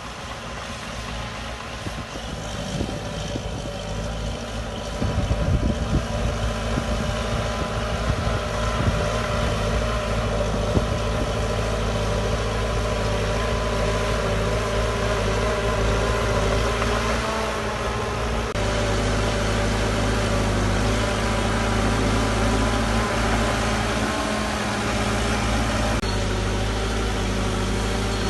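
Heavy diesel earthmoving machinery running steadily at work, getting louder about five seconds in, with the engine note shifting a couple of times later on.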